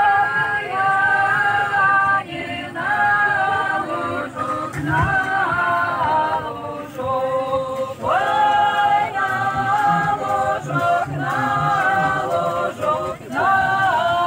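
A small group singing a cappella, voices together without instruments. They sing in held phrases of a couple of seconds each, with short breaks between phrases.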